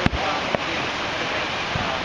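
Two sharp firework bangs about half a second apart, over a steady rushing background of wind noise.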